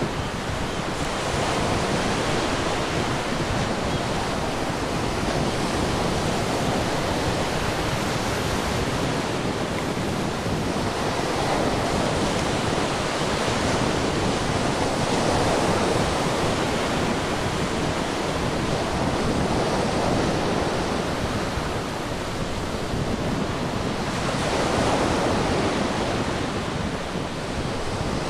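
Ocean waves washing onto a shore as a continuous rushing surf, swelling and easing every few seconds.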